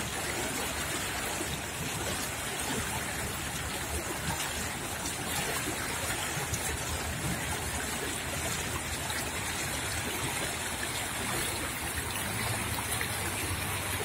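Small stream running high with spring snowmelt and rain water, flowing and splashing over shallow riffles in a steady, even rush.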